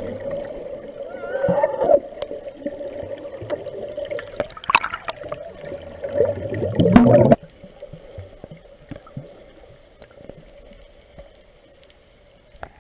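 Underwater sound heard through a submerged camera: muffled water noise and bubbling with a steady hum and scattered clicks. About seven seconds in it drops suddenly to a faint hiss.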